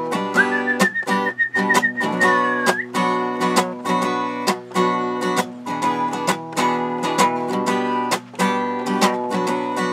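Acoustic guitar strummed in a steady rhythm, with no singing. About half a second in, a high whistle-like note holds for about two seconds and bends upward at its end.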